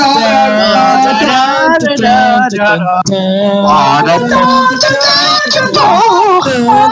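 Young people singing a melody with held notes over a Discord voice call, with a short break about three seconds in.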